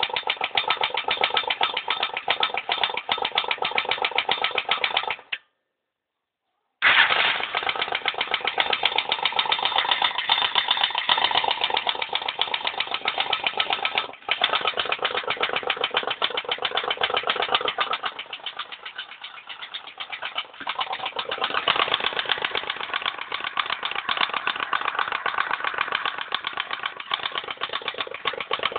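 Viper Zubr motorcycle engine running with a fast, even knocking clatter, the engine knock that the owner is presenting. The sound breaks off completely for about a second and a half about five seconds in.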